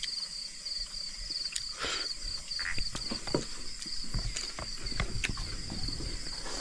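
Night insects chirping in a steady, rapidly pulsing high-pitched trill, with a few scattered clicks and knocks over it.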